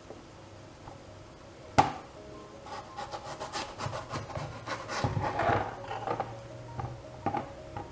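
Kitchen knife cutting through a melon pear (pepino) on a plastic cutting board: a sharp knock about two seconds in, then a run of small clicks and scraping as the blade works through the fruit.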